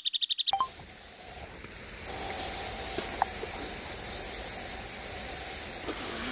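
A rapidly pulsing high-pitched beep, a censor sound effect over swearing, cuts off about half a second in. Then a steady hiss with a few faint clicks.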